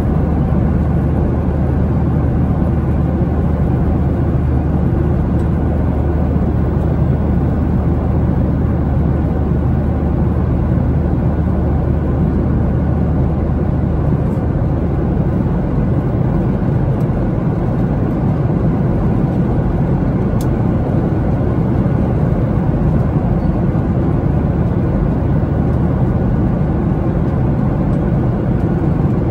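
Steady low cabin noise of a Boeing 737-800 in flight, heard from inside the passenger cabin.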